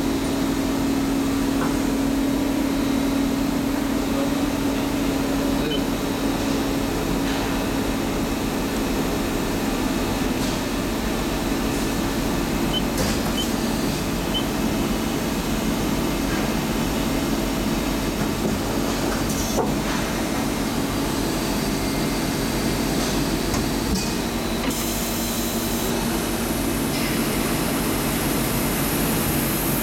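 CNC lathe running with a steady machine hum and a steady tone, a few light clicks, while it machines a steel rebar coupler; near the end a hiss comes in as coolant sprays over the spinning part.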